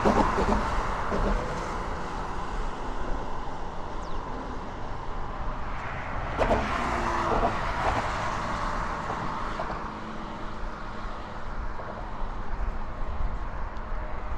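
Road traffic passing close by on a highway bridge: a steady wash of tyre noise and engine rumble, swelling as vehicles go past near the start and again about six seconds in.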